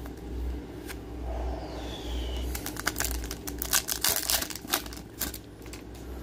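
Trading cards and plastic card sleeves being handled, with a quick run of crinkles and small clicks in the middle, over a steady low hum.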